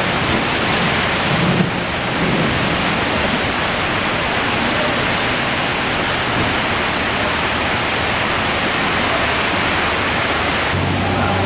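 Rain falling on wet pavement, a loud, even hiss. A car engine's low hum comes in near the end.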